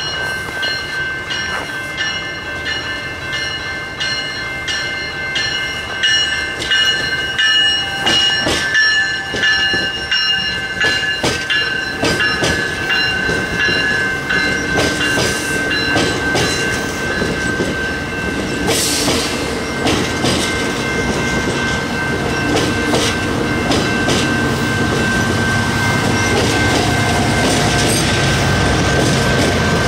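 AMT push-pull commuter train of double-deck coaches passing close by, its wheels clicking over the rail joints in an even rhythm with a high, steady ringing from wheels and rails. Near the end the diesel locomotive pushing at the rear comes by, and its engine rumble grows louder.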